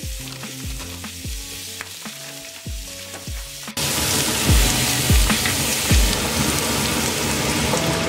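Diced bell peppers and onion sizzling in a frying pan with blocks of frozen spinach, over background music with a steady beat. About four seconds in, the sizzling turns suddenly much louder as the vegetables are stirred with a spoon.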